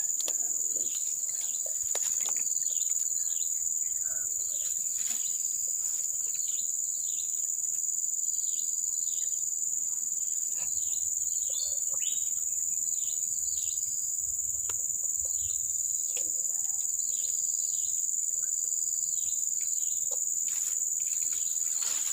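Steady high-pitched insect chorus, with many short bird chirps scattered over it.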